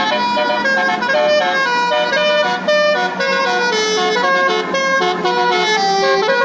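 Indonesian bus 'telolet basuri' musical air horn playing a melody, the notes stepping quickly from one pitch to the next.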